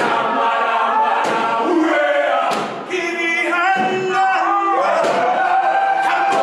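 A group of men singing a gwijo chant together, unaccompanied, with several voices holding notes at once. A few sharp hits come through along the way.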